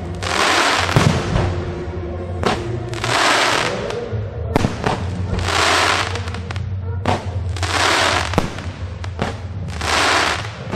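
Fireworks going off: about five long rushing, crackling bursts a couple of seconds apart, with sharp cracks between them. Show music with a low sustained tone plays underneath.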